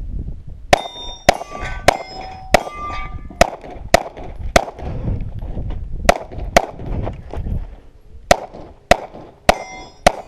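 A pistol fires a quick string of about fifteen shots, roughly half a second apart, with a short pause about two-thirds of the way through. Steel targets ring with a clang when struck.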